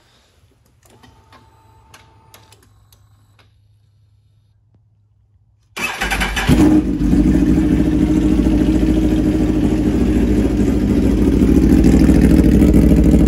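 Aprilia RSV4's V4 engine, with a titanium SC Project slip-on exhaust and no catalytic converter, starting on its freshly flashed tune about six seconds in: it catches almost at once, rises briefly, then idles steadily and loud. Before the start there are only faint clicks and a short whir of the servo motors as the ignition comes on.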